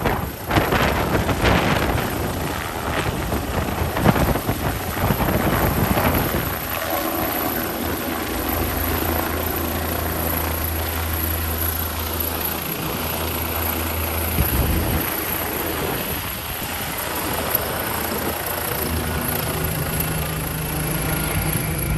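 Air ambulance helicopter climbing away overhead just after take-off, its rotors and turbines running at full power. The sound is uneven and gusty for the first six seconds or so, then settles into a steadier drone as the helicopter moves off.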